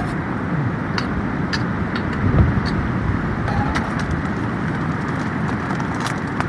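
Heavy rain falling steadily, with scattered sharp taps and a single low thump a little over two seconds in.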